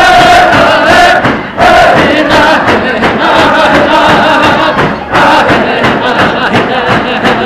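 Tlicho (Dogrib) drum dance song: men chanting together over steady hand-drum beats, with a dense dancing crowd around them. The singing breaks off briefly twice and starts again.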